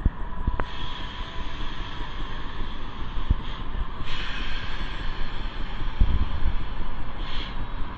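Delmar Loop streetcar running along its rails, heard from on board: a steady rumble with a faint steady whine and a few sharp clicks.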